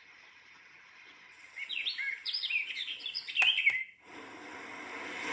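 Recorded birdsong wake-up sound playing from the A90 sunrise alarm clock: a quick run of high chirps with two sharp clicks near the end, cut off abruptly. A steady rushing noise starts right after.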